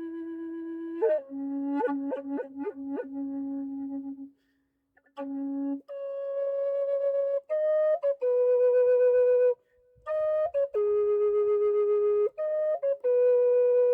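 Native American style wooden flute playing a slow melody of held notes, with quick trilled ornaments early on and two brief pauses for breath.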